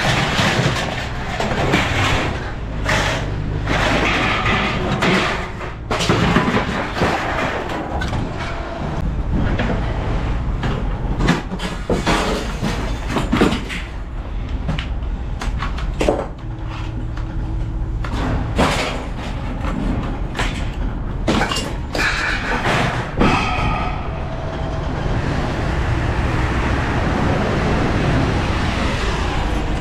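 Irregular clanks, knocks and door-like bangs of objects being handled around a vehicle, over a steady engine rumble; from about 24 seconds in the knocking stops and the vehicle drives with steady road noise.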